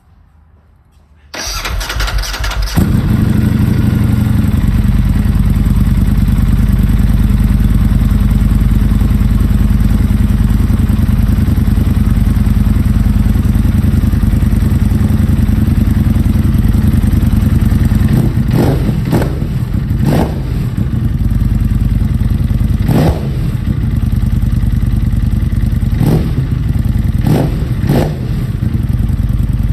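Ducati Panigale V4 S motorcycle started up: the starter cranks briefly about a second and a half in, the V4 engine catches and settles into a steady idle, and from about two-thirds of the way through it is given several short, sharp throttle blips.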